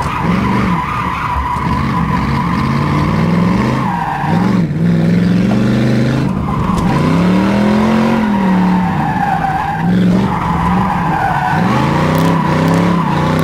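Ford Mustang 5.0 V8 revving up and down hard through a drift, with tyres squealing steadily as the car slides sideways. The squeal breaks off briefly a couple of times. Heard from inside the car.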